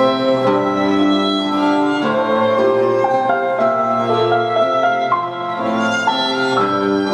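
Instrumental music: a violin plays a melody of held notes over piano.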